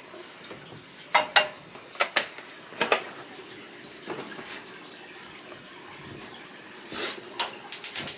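A few sharp clinks and knocks of kitchenware over a steady hiss, then near the end the rapid, evenly spaced clicking of a gas stove's igniter as a burner is lit.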